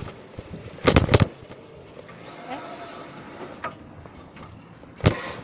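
Riding noise picked up by a camera on a moving bicycle: steady wind and road hiss, with a brief clatter of knocks about a second in and one more knock near the end.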